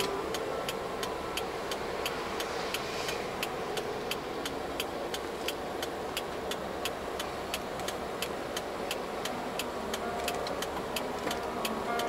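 Car interior noise: engine and tyres running on a wet road, with a steady ticking about three times a second.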